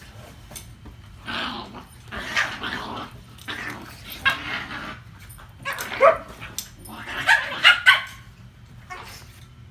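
A dog barking and grumbling in a string of about five rough bursts, each a second or less, the loudest near the middle and toward the end.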